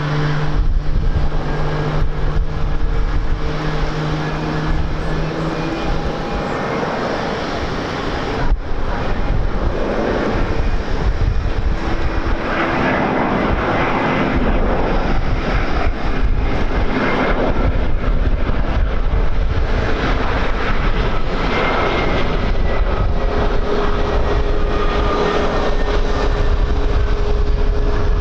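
Airliner engines running, a loud continuous roar with steady engine tones that fade out and are replaced by a higher one later on. Wind buffets the microphone throughout.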